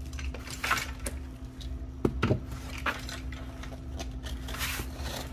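Handling noise from a cardboard shipping box being moved about on a tabletop: a scattering of light taps and knocks, a few seconds apart, over a faint steady hum.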